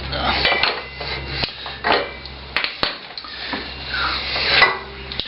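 Metal hand tools clinking and knocking against metal parts: a string of sharp clicks, some with a short metallic ring.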